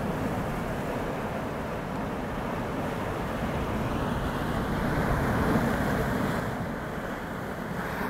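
Steady rush of choppy sea water alongside a moving boat, mixed with wind buffeting the microphone, swelling slightly about halfway through.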